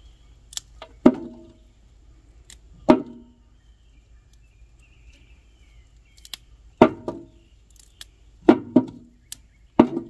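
Six irregular knocks or clanks, each ringing briefly at much the same pitch, with sharp clicks between them; two come close together near the end.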